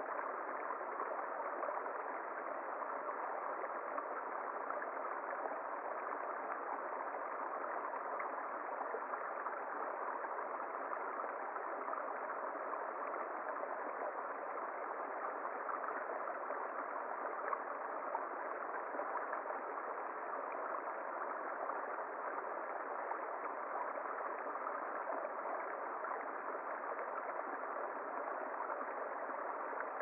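A small forest brook trickling over stones, giving a steady, even rush of water.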